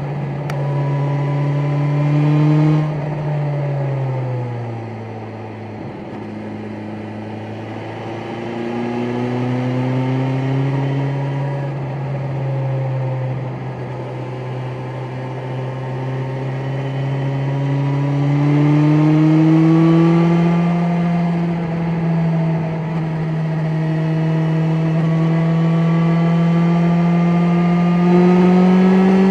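BMW S1000XR inline-four motorcycle engine pulling in sixth gear. Its pitch drops about four seconds in, then climbs slowly and steadily as the bike gathers speed.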